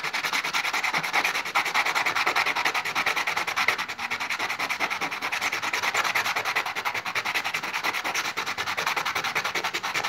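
A hard black stone rubbed by hand back and forth on wet sandpaper, a gritty rasping in quick, even strokes several times a second, as a flat face is ground open on it to show its speckled pattern.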